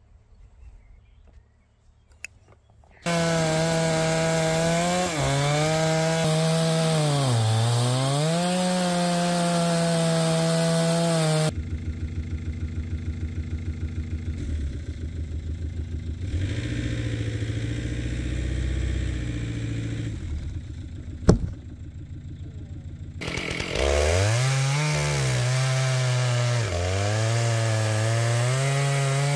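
Chainsaw on a chainsaw mill cutting a hard beech log. After about three seconds of quiet it runs at full revs, its pitch dipping and recovering as it bogs in the tough wood. It falls to a lower idle midway, with one sharp click, then revs up again and cuts on.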